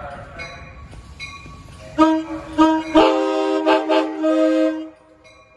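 Nathan K5LA five-chime air horn on an Amtrak cab car sounding a chord: two short toots about two seconds in, then a long blast of nearly two seconds that cuts off shortly before the end.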